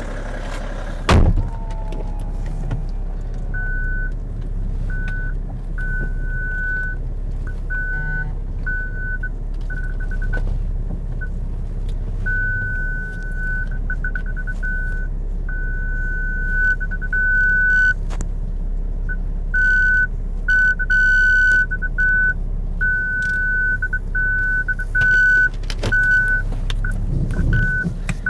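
A car door shuts with a heavy thunk about a second in. Then comes a steady low rumble with an electronic beep that keeps sounding in short and long stretches, some of them held for a couple of seconds.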